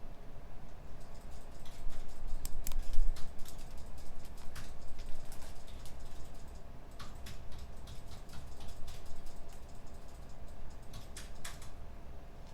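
Computer keyboard being typed on in quick runs of key clicks, with a short pause about halfway, over a steady low hum of room ventilation or computers.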